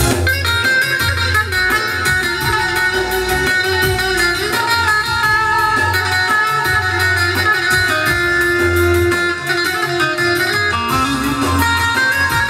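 Instrumental folk tune: a small plucked lute played with a plectrum over an electronic arranger keyboard, which gives held melody notes and a steady bass-and-drum backing rhythm.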